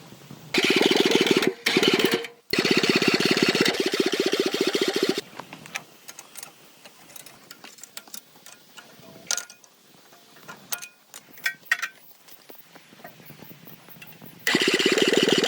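A motor-driven machine or power tool running loud with a fast, even pulsing, cutting out briefly twice and stopping about five seconds in. Scattered light clicks and knocks follow, and then it starts again near the end.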